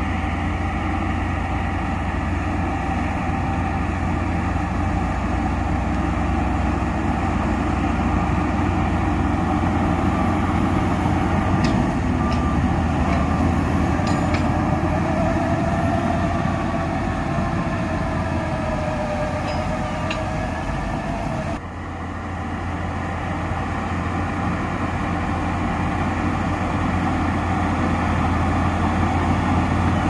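A bulldozer's heavy diesel engine running steadily under load, with a deep rumble throughout. A wavering squeal rises over it in the middle, and the sound briefly drops about two-thirds of the way through.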